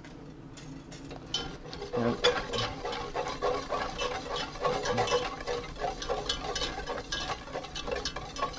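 Wire whisk beating hot stock into a roux in a stainless steel pot: quick scraping and clinking of the wires against the pot, starting about a second in.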